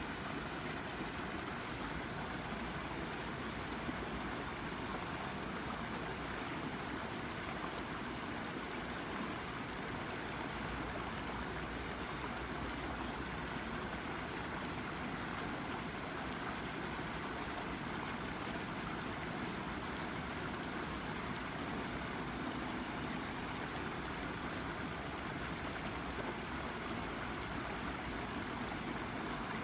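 A shallow brook babbling over a rock, a steady, even rush and trickle of water.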